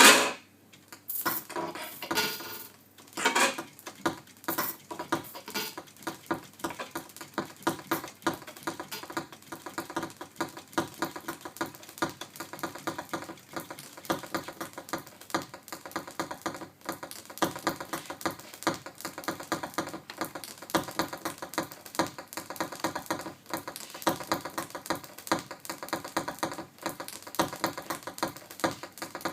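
Improvised musique concrète played live on a Revox A77 reel-to-reel tape recorder: a dense stream of fast clicks and clatter, with a few louder hits in the first few seconds.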